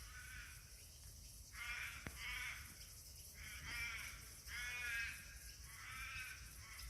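A bird calling over and over, faint: short pitched calls about once every second or so, over a low steady rumble.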